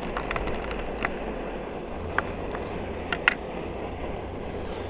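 Portable gas stove burner running steadily under a pot of water, a low rumbling hiss. A few sharp little clicks, the loudest pair about three seconds in.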